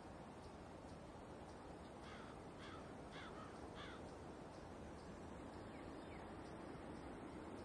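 A crow cawing four times in quick succession, about two seconds in, then two fainter calls, over a steady low background hiss of open country.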